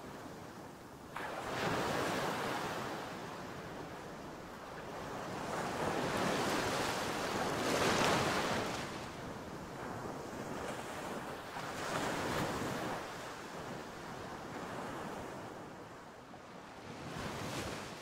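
Ocean surf: waves breaking against a seawall and washing over the promenade, a rushing noise that swells and eases with each wave. It surges suddenly about a second in and is loudest near the middle.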